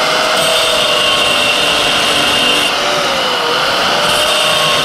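Hercules angle grinder running and cutting through the metal shaft of an air-conditioner condenser fan motor to trim it to length. Its whine sags in pitch about three and a half seconds in as the disc bites, and a high grinding hiss comes in twice, while the disc is in the cut.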